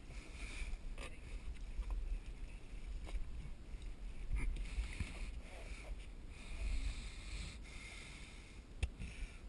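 Scuba diver breathing through a regulator underwater: a hiss on each inhale every second or two, alternating with rumbling exhaust bubbles, and a few sharp clicks.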